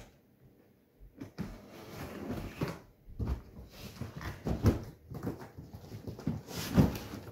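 Large cardboard shipping box being handled and turned over on a carpet: cardboard scraping and rubbing, with heavier thumps about halfway through and again near the end.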